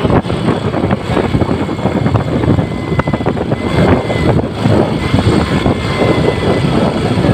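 Motorcycle riding along a road: steady engine and road noise with wind buffeting the microphone, loud and unbroken.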